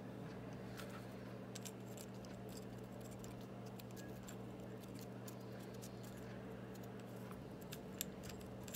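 Faint scattered clicks and light taps of small parts being handled as a micro quadcopter frame is fitted over its flight-controller and ESC stack, over a steady low hum.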